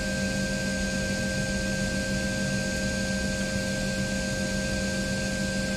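Steady mechanical hum with several constant whining tones: the ambient noise of an Embraer 170 cockpit on ground power with the APU running. The tones hold steady throughout.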